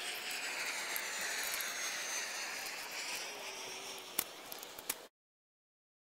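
Airplane flying over: a broad rushing noise with a faint whine slowly falling in pitch. Two sharp wooden knocks come near the end, from firewood being split with a knife, and then the sound cuts off.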